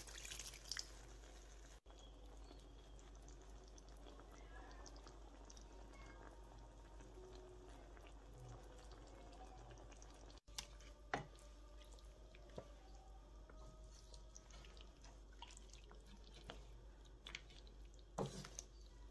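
Mostly near silence with a low hum, broken by a few soft clicks and drips. Water poured into a cooking pan splashes briefly at the very start.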